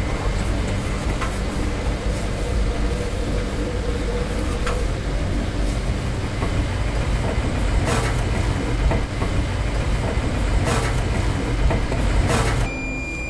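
A steady low rumble with a few sharp clacks, like a rail car or other vehicle in motion, then near the end the rumble drops away and a steady high-pitched beep starts.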